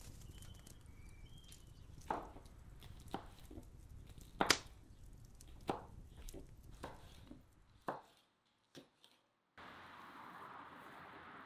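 Kitchen knife chopping red chili peppers on a wooden cutting board: separate sharp knocks of the blade on the board, about one a second, the loudest about halfway through. Near the end a steady outdoor hiss takes over.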